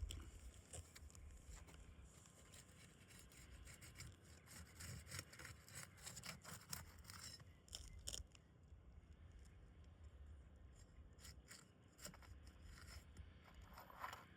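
Faint, irregular scraping and clicking of a steel pry bar worked under asphalt roof shingles to loosen them.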